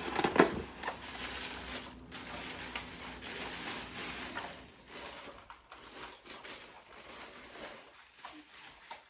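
Packaging being handled and rustled while a model train locomotive is unboxed, with a couple of sharp knocks in the first half second.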